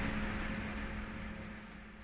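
Steady mechanical hum with a hiss, fading out gradually.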